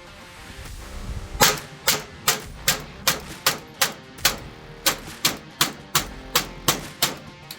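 Pioneer Arms Grom Series AK-47 Hellpup in .22 LR fired in a steady string of about fifteen semi-automatic shots, roughly two and a half a second. The string starts about a second and a half in, with a brief pause a little past the middle.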